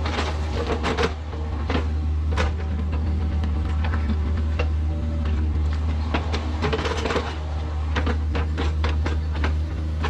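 Kubota mini excavator's diesel engine running steadily under load, with repeated knocks, clanks and scrapes of the bucket working dirt and stones.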